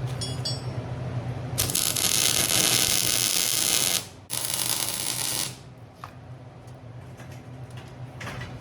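An angle grinder running, its cutting disc biting into steel in two loud, harsh passes of about two seconds and one second, then easing off to a quieter hum.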